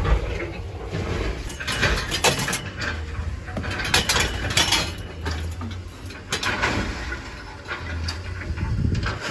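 Irregular metallic clanking and rattling, with scattered sharp knocks, over a steady low rumble.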